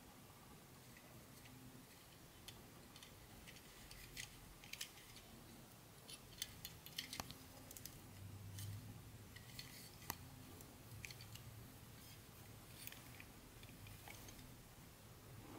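Faint, scattered light clicks and crinkles of small plastic parts and packaging being handled, over a low steady hum.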